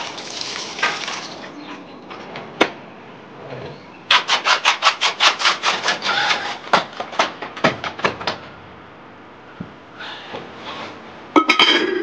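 Liquid poured from a wooden ladle splashes into a glazed ceramic pickle jar. Then comes a run of about sixteen quick scrapes, roughly four a second, as the heavy earthenware jar is rocked and dragged across a concrete floor. Near the end there is a sharp, ringing ceramic clink at the jar's mouth.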